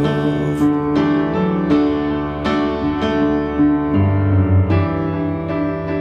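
Piano playing a slow instrumental passage without singing, a new chord or note struck about every three-quarters of a second, with deeper bass notes for a moment around the middle.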